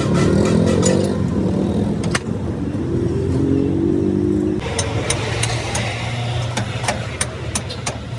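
Road traffic: vehicle engines accelerating, rising in pitch twice, then a steady low engine hum, with sharp metallic clinks in the second half.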